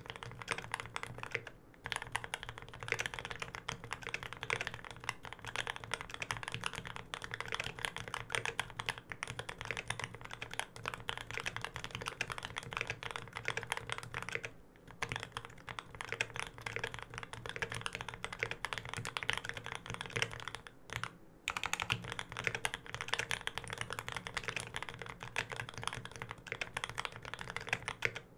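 Steady, fast typing on a custom tenkeyless mechanical keyboard (Lin Special Whale) with Krytox-lubed Gateron Ink Black linear switches on an aluminium plate, with GMK keycaps. The keystrokes run together in dense runs, broken by three short pauses, about 1.5 s, 14.5 s and 21 s in.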